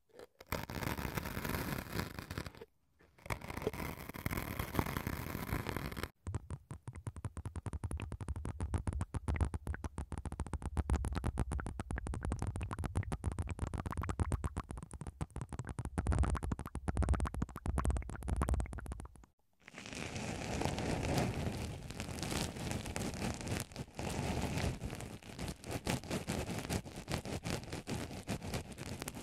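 Close-up ASMR trigger sounds on binaural ear microphones. First a thin stream of liquid poured onto sponge cubes, broken by a short gap. Then about thirteen seconds of rapid clicking from syringes of blue liquid at the ears, and finally an even scratching as a black cotton swab works into a foam sponge over the ear.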